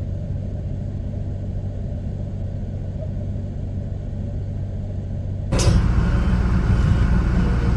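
Four-wheel-drive truck's engine running with a steady low rumble. About five and a half seconds in, it abruptly gets louder and rougher, with added hiss.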